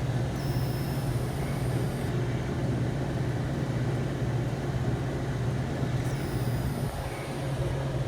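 Handheld electric hot-air dryer blowing steadily with a low hum, drying water out of a leaking, corroded evaporator-pan float before it is sealed with silicone. A faint high whine comes in twice, near the start and again about six seconds in.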